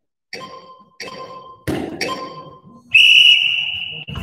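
Electronic training timer counting down: three short beeps about a second apart, then one long, louder, higher beep that signals the start of the round. A thud sounds between the second and third beeps.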